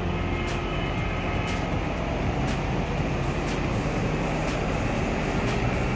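Double-decker buses driving past in city street traffic: a steady engine hum over the general noise of traffic.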